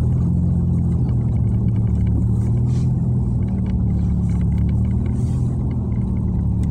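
Car engine running at low, steady revs, heard from inside the cabin as the car creeps through floodwater covering the road.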